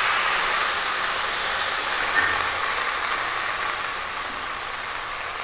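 Wet ginger, garlic, onion and green chilli paste sizzling hard in hot oil, a steady hiss that slowly dies down as the oil settles.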